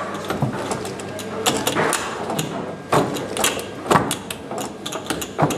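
Tecball foosball table in play: irregular sharp clacks of the ball, rods and plastic figures knocking, a few of them much louder, over a steady background murmur.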